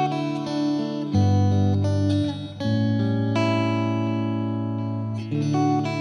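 Background music: sustained instrumental chords that change about every second and a half.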